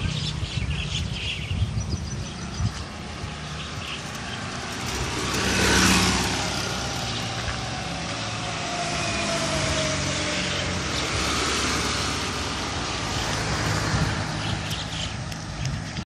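Road traffic: a motor vehicle passes, loudest about six seconds in and then fading with a falling pitch, over a steady low engine hum.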